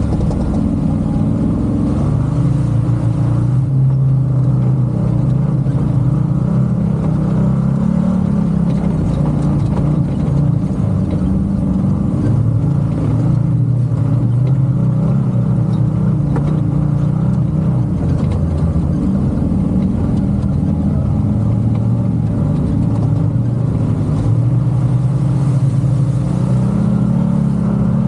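A motor vehicle's engine running continuously under way, its pitch rising and falling gently with the throttle.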